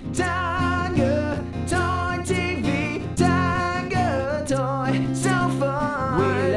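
Intro music: a song with a sung melody over steady instrumental accompaniment.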